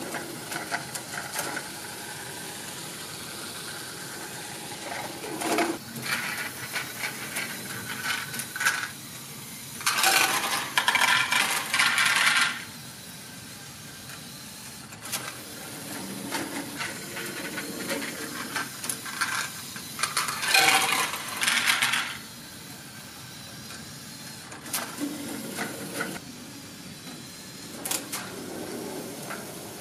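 Lego Technic rotary dumper mechanism running: a steady whir of Lego motors and plastic gears with small rattles, and two loud stretches of clattering about ten and twenty seconds in as a load of small plastic balls pours out of the tipped wagon.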